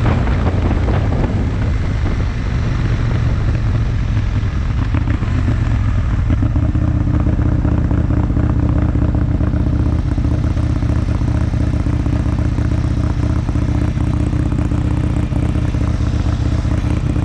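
Aprilia Tuono Mille's 60-degree V-twin engine running at steady revs. A rushing noise, like wind, covers it for the first six seconds or so, then fades.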